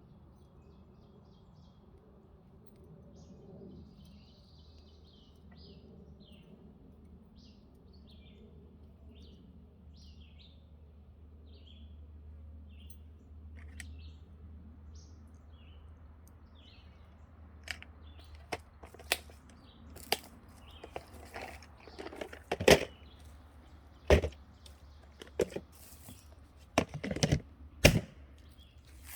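A bird chirping repeatedly with short high notes, then a run of sharp knocks and clicks in the second half, the loudest near the end.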